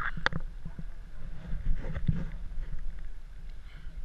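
Swimmers splashing and sloshing through cave water, with two sharper splashes about a quarter second in and about two seconds in, over a steady low rumble.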